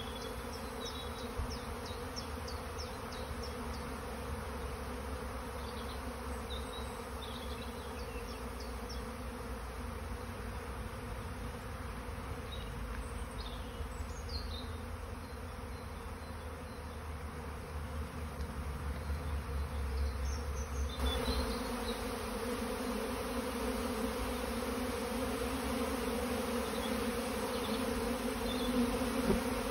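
A swarm of honeybees buzzing: a steady, dense hum of many bees flying around the clustered swarm, getting louder about two thirds of the way through.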